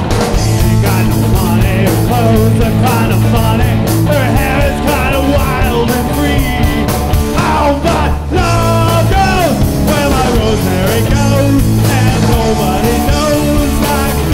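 A rock band playing loudly in a punk style: two guitars, bass and drums, with lead vocals singing over them from about a second in.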